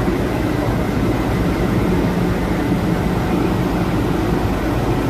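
Steady hum inside an MTR M-Train carriage at a station platform: the train's electrical equipment and air conditioning running, with a couple of steady low tones and no distinct knocks or announcements.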